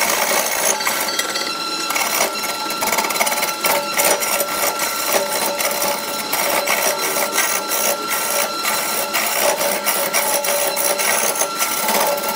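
Wood lathe running while a hand-held turning tool cuts into a large spinning wood blank: a dense, uneven chatter of scraping and clicking over a thin, steady whine.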